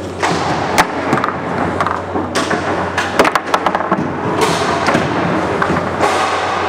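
Foosball play on a Roberto Sport table: sharp clacks of the ball being struck by the rod men and knocking against the table, with a quick cluster of hits about three seconds in, over steady background noise.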